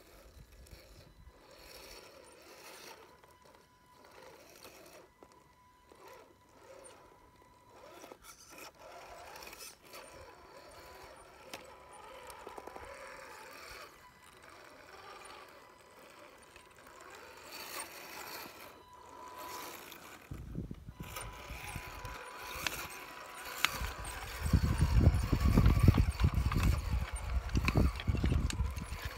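A scale RC trail truck's electric motor and gear drive whining faintly, with tyres and chassis clicking and scraping over rock and loose slate. A low rumble comes in about two-thirds of the way through and grows loud in the last few seconds.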